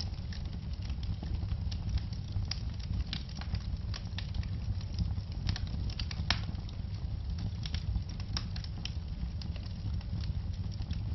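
Wood fire crackling in a fireplace: a steady low rumble of the flames with frequent irregular sharp pops and snaps.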